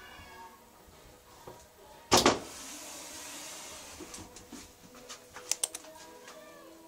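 A cattery pen door being handled: one loud sharp clatter about two seconds in, a short hiss after it, then a few light clicks later on.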